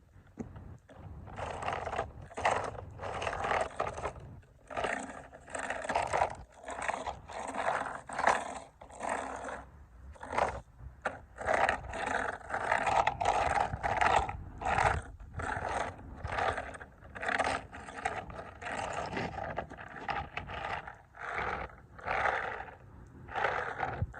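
Combat boots pressing and grinding on toy cars: a run of scraping, crunching strokes, about one to two a second.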